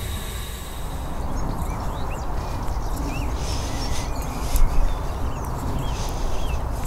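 Low wind rumble and handling noise on a moving microphone, with a few soft footfalls on grass. Small birds chirp intermittently in the background.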